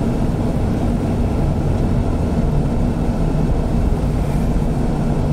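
Inside a car driving on a rain-soaked road: steady low engine hum and road noise.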